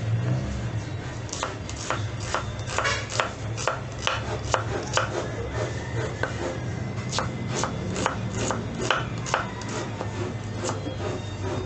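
Chef's knife chopping a red onion on a wooden chopping board: uneven blade strikes against the wood, about two a second.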